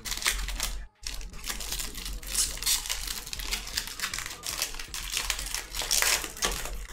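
Foil trading card pack wrapper crinkling and crackling as hands peel and tear it open, in quick irregular bursts with a brief pause about a second in.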